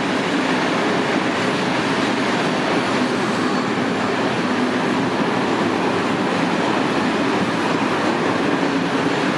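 Freight train of open-top gondola wagons passing close by: a steady, loud noise of wagon wheels running on the rails.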